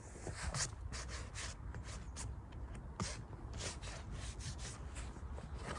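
Irregular rubbing and scraping noises close to the microphone, over a faint low rumble.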